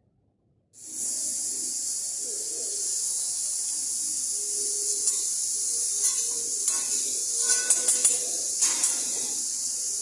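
Food sizzling on a steel teppanyaki griddle, a steady hiss that starts about a second in, with metal spatulas clicking and scraping on the hot plate in the second half.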